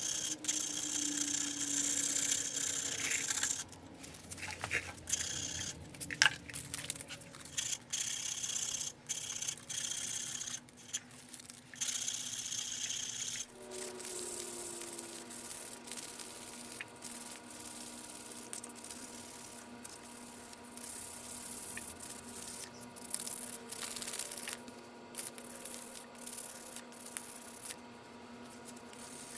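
Irregular scraping and rubbing strokes of hand abrasive work, with an abrupt change in the background sound about 14 seconds in.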